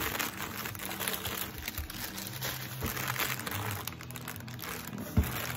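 Inflated plastic air-cushion packing crinkling and rustling as it is grabbed and lifted, with one sharp thump about five seconds in.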